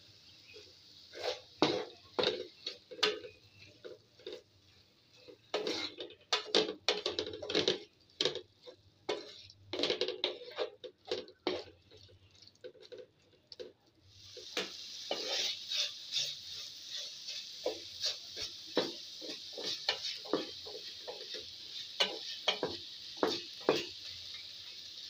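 Wooden spatula scraping and knocking against a pan in irregular strokes while stir-frying a shredded chicken filling. From about halfway through, a steady sizzle of the food frying joins in.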